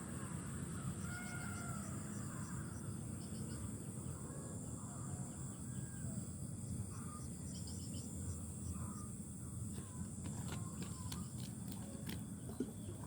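Open-field ambience: a steady low wind-like rumble and a steady high hiss, with faint short bird calls scattered through the first half. A few sharp clicks come near the end.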